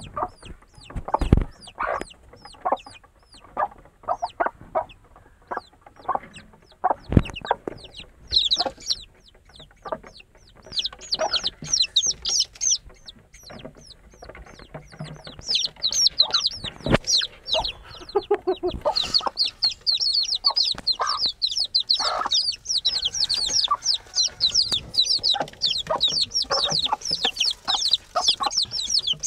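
Young chicks cheeping with high, short, falling peeps, scattered at first and almost continuous from about two-thirds of the way in. A hen clucks low beneath them, and there are a few short knocks.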